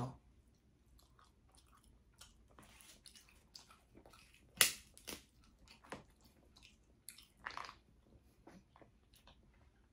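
Snow crab being cracked open and eaten: scattered sharp crackles of shell breaking, the loudest about four and a half seconds in, with chewing.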